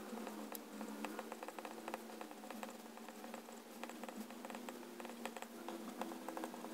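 Pilot Penmanship extra-fine fountain pen nib writing on paper: a run of quick, light scratches and ticks as each letter is formed, over a faint steady hum.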